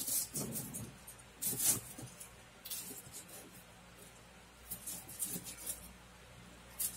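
A knife slicing through a crisp deep-fried salted-egg fried egg on a wooden chopping block: short crunching crackles in several bursts, a few seconds apart.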